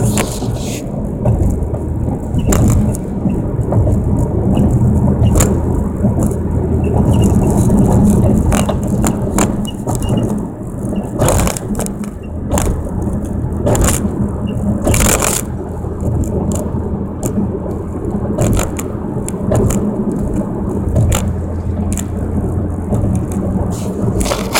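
2009 Nissan GT-R driving, its engine and road noise steady underneath, with short sharp chirps at irregular intervals, a second to several seconds apart. The chirping is a new noise of unknown origin, which the owner suspects comes from the suspension.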